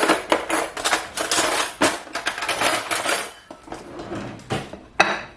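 A spoon clinking and scraping against a pot and plate as food is dished out: a busy run of clatter for about three seconds, then a few scattered clinks and one sharp clink near the end.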